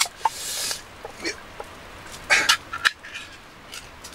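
A food tin's ring-pull lid being opened: a sharp click, then a short hissing tear, with a louder scraping rasp and a few small metal clicks about two and a half seconds in.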